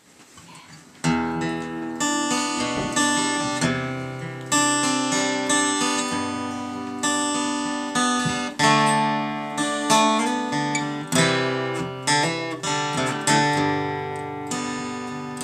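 Acoustic guitar played solo, an instrumental introduction of plucked and strummed chords, each struck sharply and left to ring. It starts about a second in.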